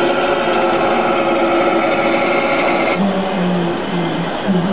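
Radio-controlled model tractors running: a steady, even mechanical hum from a wheeled model tractor, which changes abruptly about three seconds in to a high steady whine over a low wavering tone from a quad-track model tractor with a front blade.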